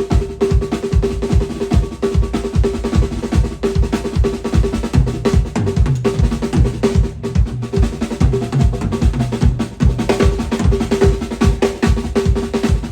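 Drum kit played at a sound check: a fast, steady run of kick drum strokes under snare hits, with a drum's ringing tone sustained throughout.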